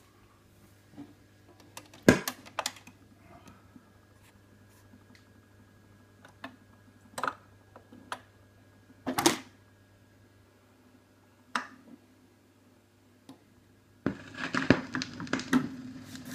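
Portable Trice Tote record player being handled: a few sharp clicks and knocks over a steady low mains hum. Near the end the stylus meets the record and a run of surface crackle begins.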